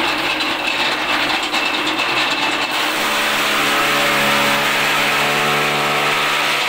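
Electric chaff cutter running, its cutter blades whirring as green fodder is fed through and chopped. About halfway in a steady humming tone comes up over the whirring.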